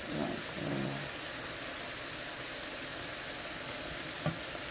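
Small dried fish (nsensa) frying in oil in a pan, giving a steady sizzle, stirred with a wooden spoon. A short knock comes about four seconds in.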